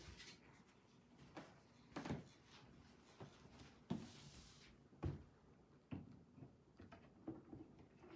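Faint, irregularly spaced knocks and clicks of aluminum rods tapping against a plastic brooder cage as they are fed through its holes, with a brief sliding hiss about four seconds in.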